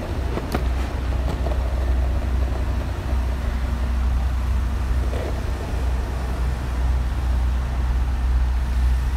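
Skateboard wheels rolling over cracked asphalt: a steady low rumble with a few sharp clicks where the wheels cross seams and cracks.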